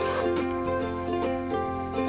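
Background music: a light plucked-string melody, with notes changing every half second or so.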